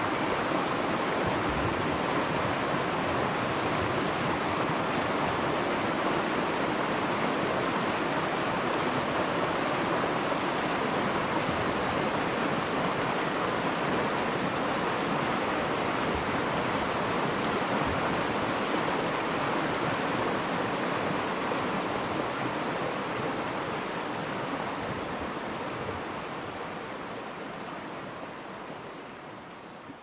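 Fast mountain creek rushing over rocks in riffles of white water, a steady even rush that fades out over the last several seconds.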